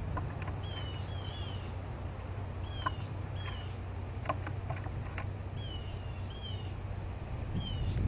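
Wild birds calling nearby: short downward-slurred chirps, mostly in pairs, repeated every second or two over a steady low hum. A few sharp clicks in the middle come from an eastern grey squirrel cracking seeds on a wooden platform feeder right by the microphone.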